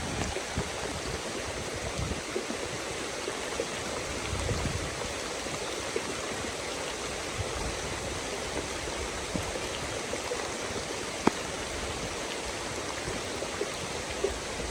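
Steady rain falling through forest foliage, an even hiss with scattered drops ticking close by.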